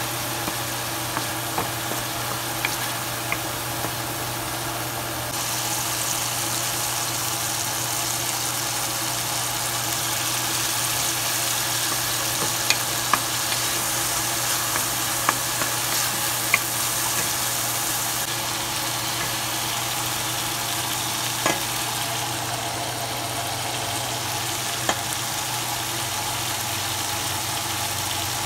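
Chopped onion, tomato and greens sizzling in oil in a frying pan, stirred with a wooden spoon that clicks against the pan now and then.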